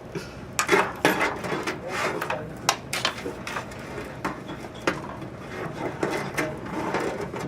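Irregular sharp clicks and knocks of hard computer parts and a case being handled during assembly, with voices talking in the background.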